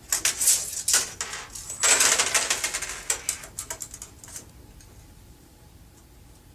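Pencil scratching a mark on the wall among a quick run of sharp clicks and rattles, busiest about two seconds in, dying away after about four and a half seconds.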